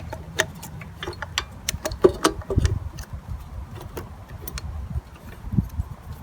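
Scattered small metallic clicks and knocks of hand tools and parts being handled while a motorcycle carburettor is fitted, at irregular times over a low steady rumble.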